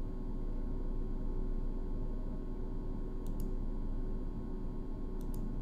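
Steady low electrical hum of the recording setup, with faint computer mouse double-clicks a little over three seconds in and again near the end.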